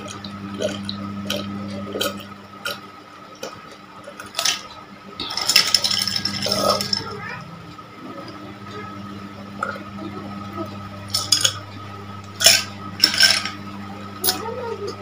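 A man drinking from a glass, heard close up: sips and swallows, with a longer, noisier stretch of sipping about five to seven seconds in and a few more quick gulps later.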